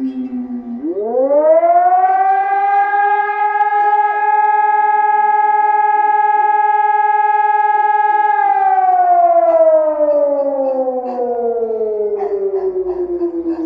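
Civil defence siren wailing: it winds up steeply from low pitch about a second in, holds one steady high tone for about six seconds, then slowly winds down. This is the 2 June siren that sounds across Bulgaria in commemoration of Hristo Botev and those who died for the country's freedom.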